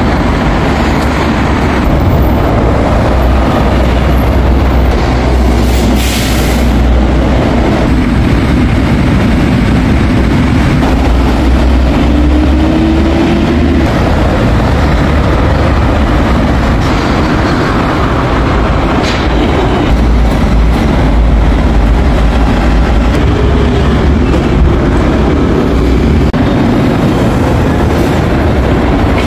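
Busan subway train running: a loud, steady rumble of wheels on rails, with a faint rising whine twice.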